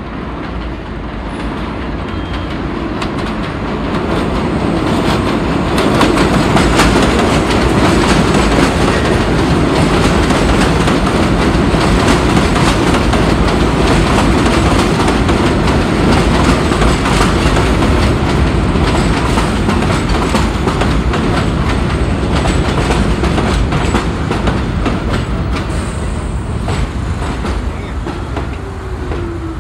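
R46 New York subway train coming along an elevated steel line and running past close by: a heavy rumble with wheels clacking over the rail joints. It builds over the first several seconds, stays loud through the middle and eases off near the end.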